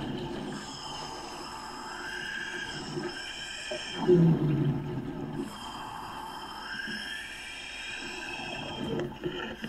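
A diver breathing underwater through an air regulator: a whining inhale that rises and falls in pitch, with a louder rush of exhaled bubbles about four seconds in.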